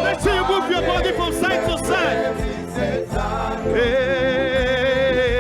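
Live gospel worship music with instrumental backing: a singer's wavering runs in the first half, then from about four seconds in a long held note with vibrato.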